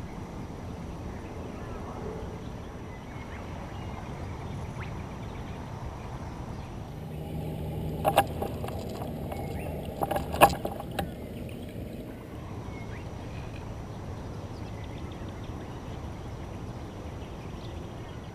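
Steady low rumble and hiss of a canoe under way on calm water while trolling, with a few sharp knocks about halfway through.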